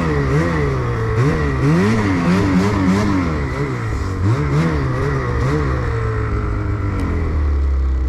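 Ski-Doo snowmobile engine revving up and down again and again as the throttle is worked, then running steadier and lower for the last couple of seconds, with a steady high whine above the engine.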